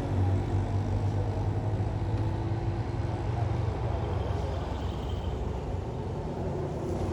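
A vehicle engine running, a steady low rumble that eases off a little about halfway through.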